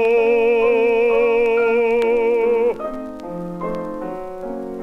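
Baritone voice holding one long sung note with vibrato over piano accompaniment, played from a 1939 78 rpm shellac record; the voice stops a little under three seconds in and the piano plays on alone, with a few faint surface clicks.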